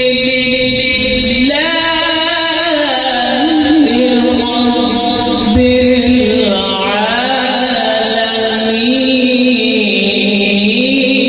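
A man reciting the Quran in Arabic in the melodic tilawat style into a microphone, holding long notes and gliding slowly up and down in pitch without a break.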